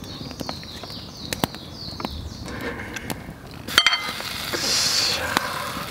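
Ladle clinking against a ceramic bowl about four seconds in, ringing briefly, as braised eggs are set onto the rice. Scattered light clicks and ticks run around it.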